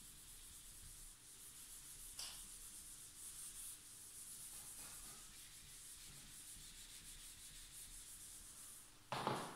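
Whiteboard eraser wiping marker ink off a whiteboard: a faint, dry, steady rubbing in quick back-and-forth strokes. A brief louder noise comes near the end.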